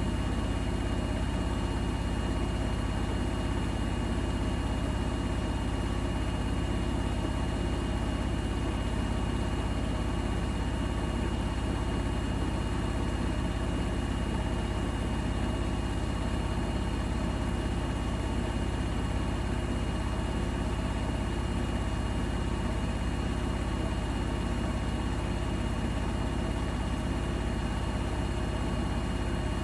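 Bosch Serie 4 front-loading washing machine running mid-cycle: a steady low hum with a faint high whine, unbroken and even in level throughout.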